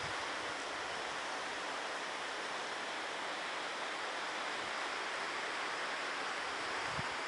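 Waterfall pouring, a steady unbroken rush of falling water, with a few faint low thumps near the end.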